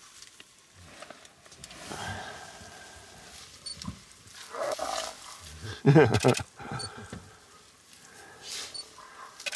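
Spotted hyena growling and snarling in defence as an African wild dog confronts it: several separate growls, the loudest about six seconds in.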